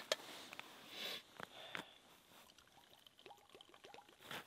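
Liquid poured from a stainless steel vacuum flask into its metal cup: a faint trickle with a few small knocks of metal.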